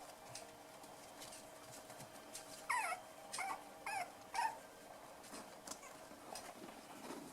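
Five-week-old poodle puppy giving four short, high-pitched yelps in quick succession, beginning about three seconds in; the first slides down in pitch. These are play yelps among littermates.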